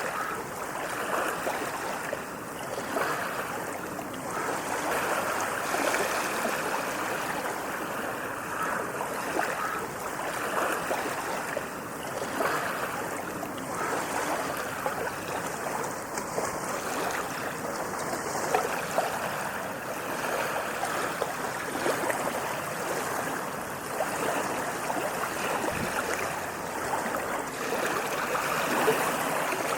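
Ocean waves washing onto a sandy beach: a continuous rush of surf that swells and eases gently, with no single large breaker.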